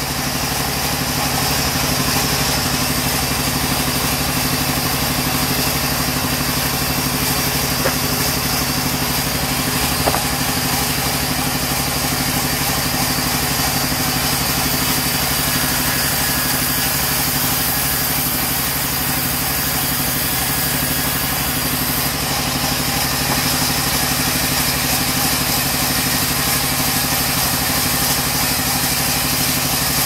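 Sawmill band saw running steadily with a constant machine hum while it rips mahogany boards.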